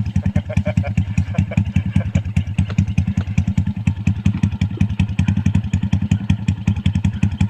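Old motorcycle engine idling with even firing pulses, about eight a second.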